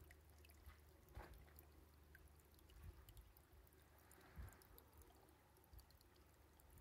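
Near silence: faint outdoor background with a steady low hum and a few soft ticks.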